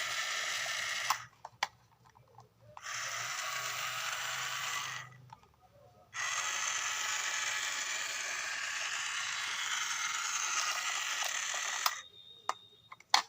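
A battery-powered remote-control toy excavator's small electric motor and plastic gears whirring in three stretches, the last the longest, with a few sharp clicks in the gaps between.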